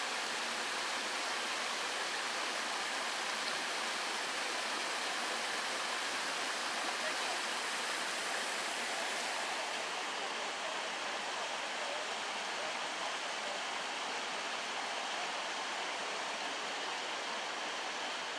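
Steady rush of falling water: a small stream splashing down over mossy rocks and dripping from a weeping rock overhang, an even hiss with no pauses.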